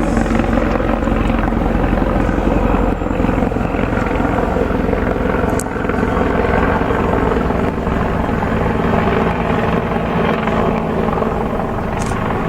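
A freight train, an EF66 electric locomotive hauling hopper wagons, running through the station: a loud, steady rumble and clatter of wheels on rail with a steady hum.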